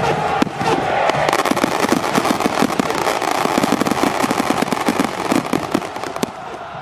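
Firecrackers going off in a rapid crackling string over a steady stadium crowd noise, thinning to a few separate bangs near the end.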